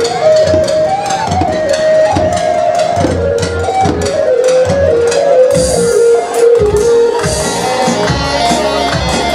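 Live Kurdish halay dance music: a melody that steps from note to note over a steady drum beat.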